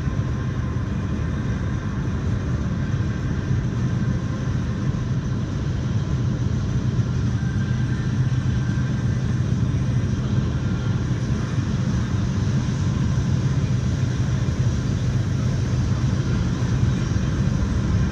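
Steady road noise and engine drone inside a moving car's cabin at highway speed.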